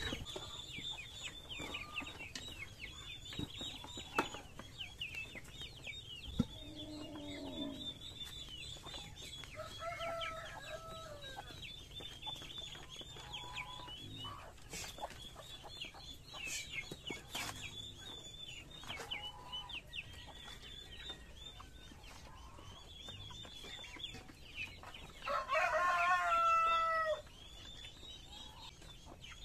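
Free-range chickens clucking with many small high chirps going on throughout, and a rooster crowing once, about two seconds long, near the end, the loudest sound. A few light knocks come in between.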